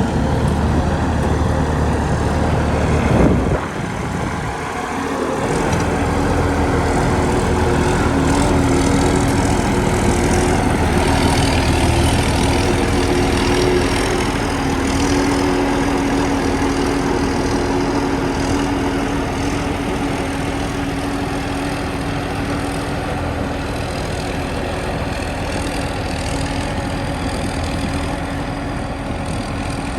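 An engine running steadily, with a sharp jolt about three seconds in, after which the low rumble drops out for a couple of seconds before it returns.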